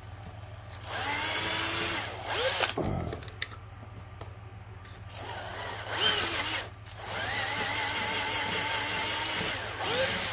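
Power drill running in several short runs, its whine rising as each run spins up, widening small screw holes.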